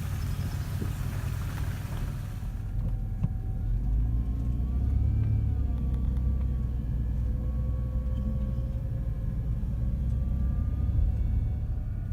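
Car rumble heard from inside the vehicle. About three seconds in, the high hiss drops away, leaving a steady low engine rumble with faint wavering tones over it.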